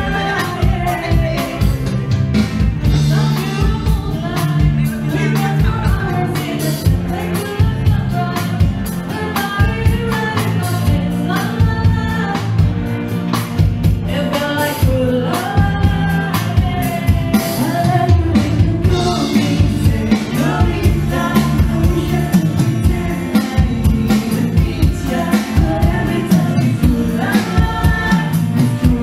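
A live band playing a song: bass guitar, electric and acoustic guitars and drums keeping a steady beat, with singing over them.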